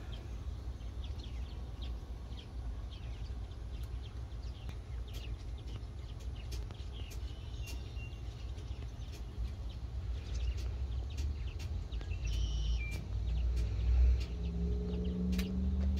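Outdoor background: a steady low rumble with scattered faint clicks and a few brief high bird chirps. A low steady hum comes in near the end.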